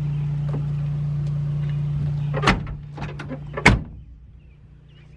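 Steady low hum of a vehicle running, then two loud slams about a second apart, typical of a truck door being shut; the hum falls away after the second slam.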